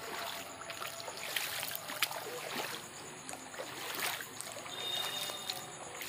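Footsteps wading through shallow floodwater, splashing and sloshing with each step.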